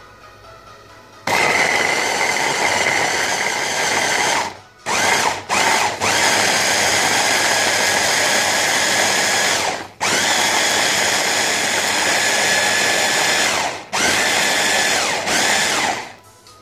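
Electric blender puréeing fresh tomatoes into sauce: the motor starts about a second in and runs with a steady whine in long bursts, with a couple of short pulses and a few brief stops, then cuts off near the end.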